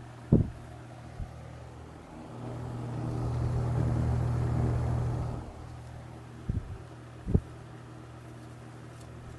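Arno TC-12 electric fan running with a steady motor hum and air rush, swelling louder for about three seconds in the middle. A few short knocks sound near the start and twice later on.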